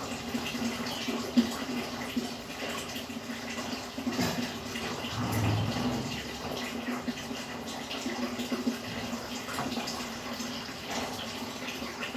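Aquarium pump running: water bubbling and trickling in the tank over a steady low hum.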